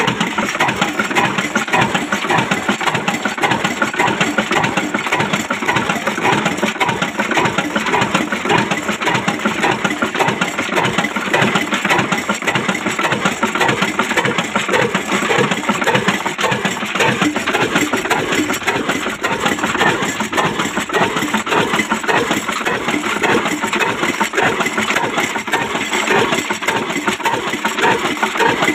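Old 22 HP Ruston Hornsby single-cylinder horizontal diesel engine running steadily with an even, repeating beat.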